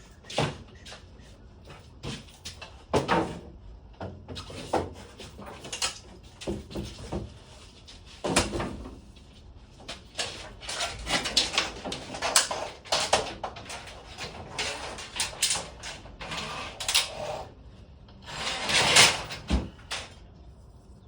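Irregular knocks, clanks and rattles from hands-on work on a garage door and its hardware, in uneven clusters with short pauses between.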